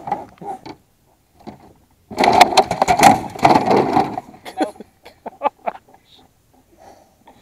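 A large catfish thrashing and knocking against a plastic cooler and the boat's metal hull as it is put in the cooler: a couple of seconds of rapid banging and rattling, then a few single knocks.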